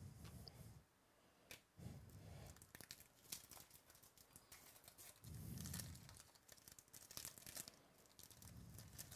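Faint tearing and crinkling of a foil trading-card pack wrapper, a 2017 Topps Chrome baseball pack, as it is torn open by hand, a dense run of fine crackles.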